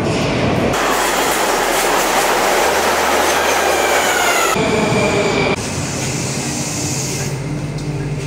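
Moscow Metro train pulling into the station: loud wheel and rail noise with a gliding whine as it slows. About five and a half seconds in it drops to a steady hum as the train stands at the platform.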